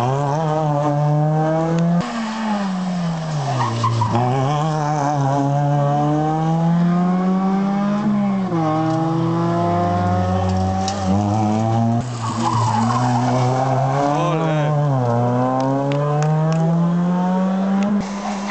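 Small hatchback rally cars running hard through a junction one after another, their engines revving up, dropping with throttle lifts and gear changes, and climbing again as they pull away.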